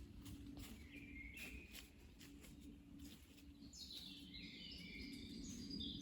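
Wild birds chirping faintly: a short call about a second in, then a run of quick high chirps in the second half, over low background noise.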